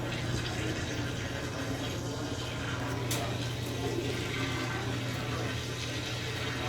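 Brastemp Total 7kg (BWL07) washing machine with water running through it in a steady rush, over a constant low hum from the machine.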